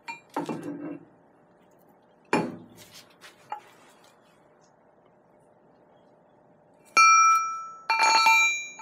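A few dull knocks as steel parts are handled, then two loud ringing metal clinks about a second apart near the end, as a steel countersink bolt is set against and into the countersunk hole of a thick steel plate.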